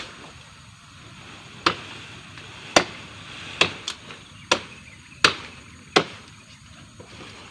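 A blade chopping into wood: about seven sharp, separate strokes at an uneven pace of a little under one a second, one pair close together in the middle.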